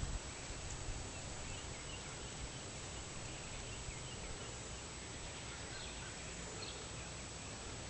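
Steady low background noise with a few faint, short, high chirps scattered through it.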